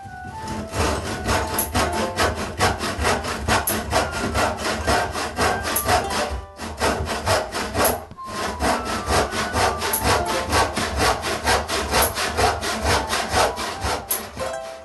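A hand saw cutting through a glued-up pallet-wood board in fast, even strokes, about five a second, with two short pauses midway.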